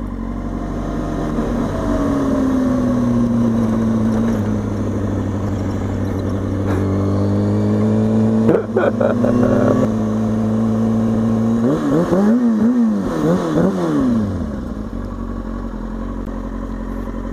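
2003 Kawasaki ZX-6R 636's inline-four engine running under way, its pitch sinking and then climbing, with a short break for a gear change about halfway through. Then a few quick throttle blips, the pitch swinging up and down, before it settles to a steady idle near the end.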